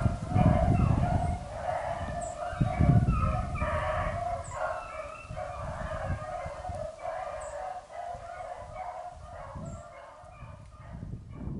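Pack of beagles baying on a rabbit's track, several hounds calling over one another, growing fainter toward the end.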